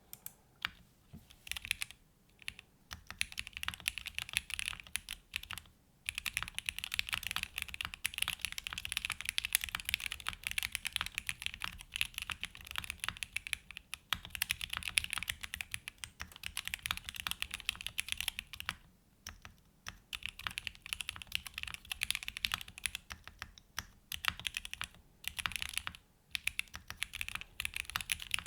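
Typing on a custom 65% mechanical keyboard: a Tofu65 2.0 with a polypropylene plate, case and mid foam, hand-lubed Gateron North Pole 2.0 switches and GMK ABS keycaps. A fast, steady run of key clacks with a few short pauses.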